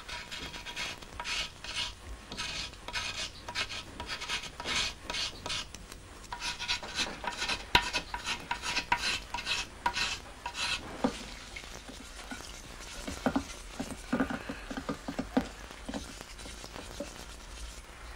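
Small metal scraper blade shaving the inside of a plaster mold in quick repeated scraping strokes, two or three a second. About eleven seconds in the scraping stops, and softer rubbing with a few light knocks follows.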